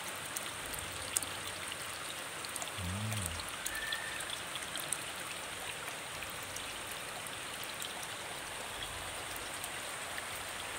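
Rain pattering steadily on the surface of a koi pond, with a continuous trickling splash of water. A brief low hum about three seconds in.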